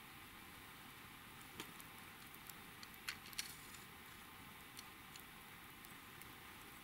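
Faint clicks and taps of fishing tackle being handled as a rod rest is set up, over a steady low hiss; the clearest are two clicks about three seconds in.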